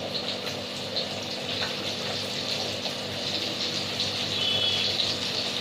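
Rava-coated bangda (Indian mackerel) pieces shallow-frying in oil on a hot tava: a steady sizzling hiss with small crackles, over a faint steady hum.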